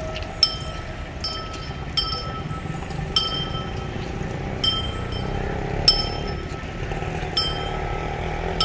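Metal clinks ringing like a small bell, about once or twice a second in an uneven rhythm, from the gear of walking elephants, over a low hum of street noise.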